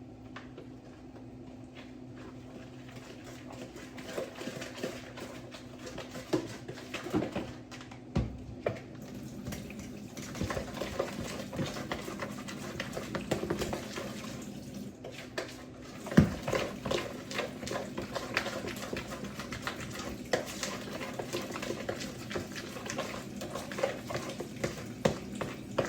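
Kitchen prep sounds: dishes and utensils clinking and knocking at irregular intervals, with one sharp louder knock about two-thirds of the way through, over a steady low hum.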